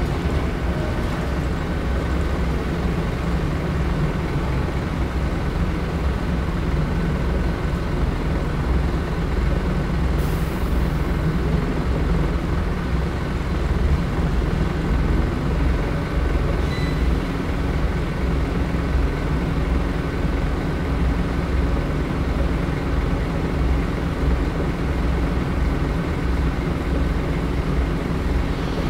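Scania DC9 nine-litre five-cylinder diesel of a Scania K94UB city bus, heard from the passenger cabin, running low and steady as the bus slows through the lower gears of its ZF Ecomat automatic and settles to idle. There is a short hiss of air about ten seconds in.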